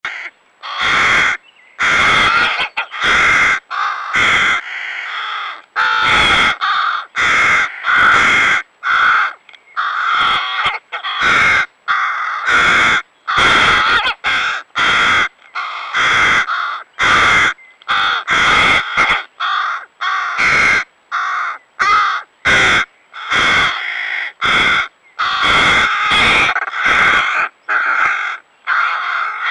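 Hooded crow fledglings begging for food with harsh, rasping caws, about one a second without a break. They are young that already feed themselves but still ask the adults to feed them.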